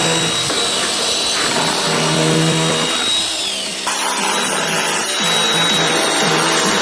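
Small two-stroke chainsaw running at high revs, its pitch shifting as it works, with background music underneath.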